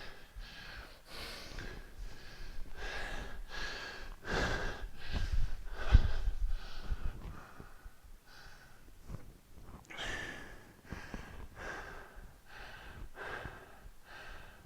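A man breathing hard from exertion in a steady train of short, forceful breaths, with a low thud about six seconds in.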